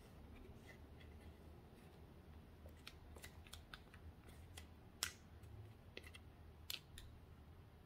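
Faint scraping and a few sharp little clicks of a stick digging pressed eyeshadow out of a plastic palette, the loudest click about five seconds in.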